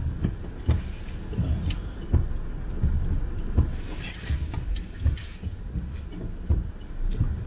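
Car being manoeuvred slowly into a parking space, heard from inside the cabin: a low engine and road rumble with scattered, irregular clicks and knocks.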